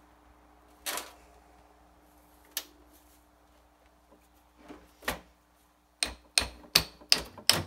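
Hammer knocks on metal at the steering rack mount: a few scattered taps, then from about six seconds in a quick run of strikes about three a second.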